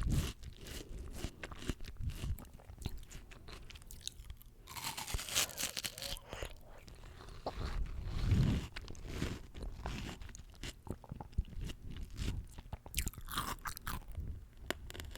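Close-miked chewing of crisp fresh fruit: many small wet crunches and crackles as the fruit is bitten and chewed.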